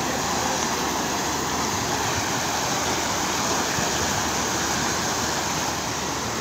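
Muddy floodwater running fast past the bank, a steady even rush of water.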